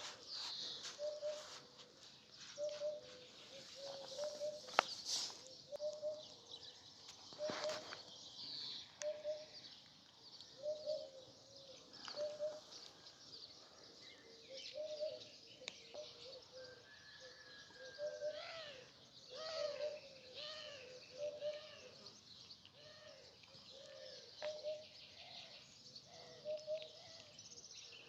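Birds calling and chirping: a short low note repeats about once a second beneath higher chirps and gliding whistles, with a few sharp clicks.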